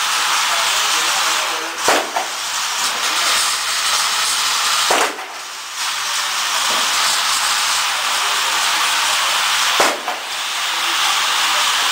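Three single 9mm pistol shots from a Glock 17, a few seconds apart, over a loud steady hiss.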